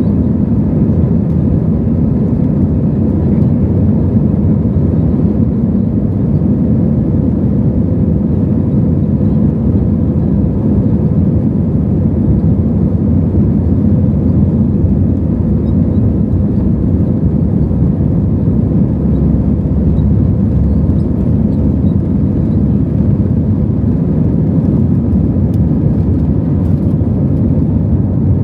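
Steady jet engine and airflow noise inside the cabin of an Airbus A320 during takeoff and climb-out. It is a loud, even rush with a faint steady hum in it.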